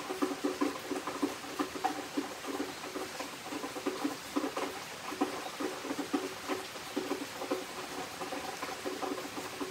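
Rain pattering and dripping in irregular drops, several a second, each drop with a short ringing tone.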